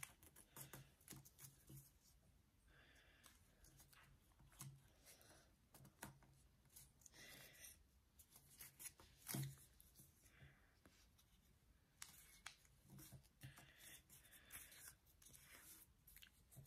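Faint rustling and creasing of a sheet of origami paper being folded and pressed flat by hand, with scattered soft clicks and taps and one slightly louder tap about nine seconds in.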